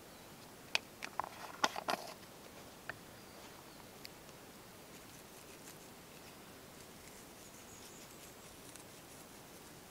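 Light clicks and crackles of seasoning being handled and sprinkled over a steel pan, bunched between about one and two seconds in, with a couple of single ticks after. Then only a faint steady hiss.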